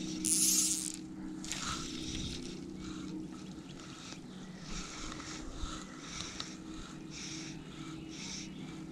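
Fly line hissing through the rod guides and the angler's fingers: one longer hiss near the start, then short rasps about every half second to a second as the line is stripped in by hand on the retrieve. A steady low hum runs underneath.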